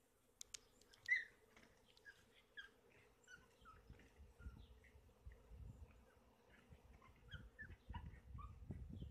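Faint, steady drone of a honeybee swarm in flight, with many short bird chirps scattered over it. A low rumble builds in the second half.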